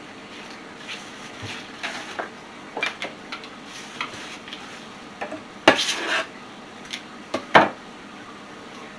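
Kitchen dishes and utensils clinking and knocking in scattered light taps. A louder rattling clatter comes about six seconds in, and a sharp knock follows a moment later.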